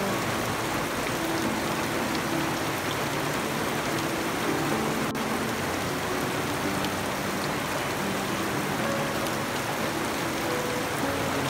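Steady rain falling on leaves and wet ground, an even hiss with no break.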